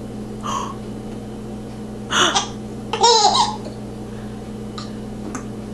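A baby hiccuping and laughing: two short, sudden hiccups, a soft one about half a second in and a sharper one about two seconds in, then a brief high giggle about three seconds in.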